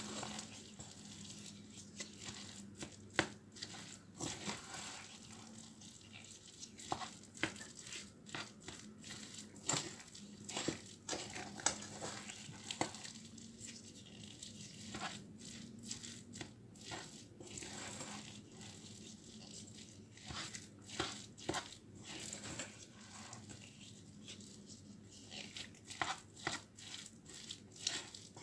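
Spatula stirring and folding freshly cooked sushi rice in a pot, seasoning it with rice vinegar: irregular scrapes and taps of the spatula against the pot, with soft squishing of the sticky rice.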